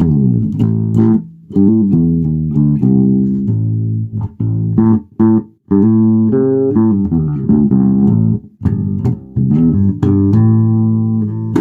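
Ibanez electric bass played through a Fender Rumble 40 bass combo amp, unprocessed: a run of plucked notes and short riffs, with brief breaks about halfway and two-thirds of the way through.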